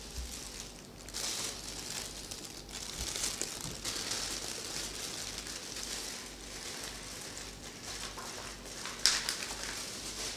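Irregular rustling handling noise, with a sharp click about nine seconds in.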